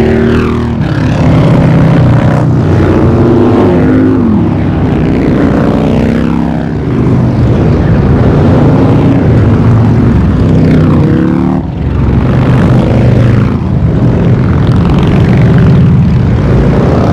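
A column of motorcycles, mostly V-twin cruisers, riding past one after another, their engines rumbling loudly. The pitch of each bike's engine drops as it goes by.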